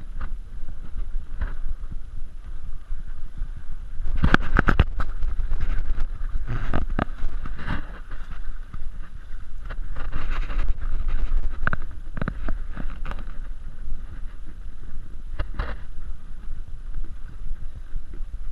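Footsteps knocking on wooden boardwalk planks in irregular clusters, over a steady low rumble of wind on the microphone.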